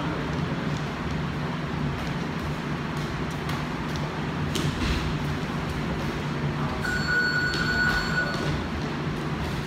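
Steady low hum and rumble of background noise, with a few faint slaps from sparring strikes a few seconds in and a brief high steady tone about seven seconds in.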